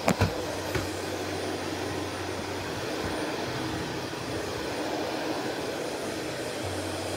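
Shark Navigator Lift Away Professional vacuum cleaner running with a steady drone as it is pushed across a kitchen floor. There are two sharp knocks in the first second.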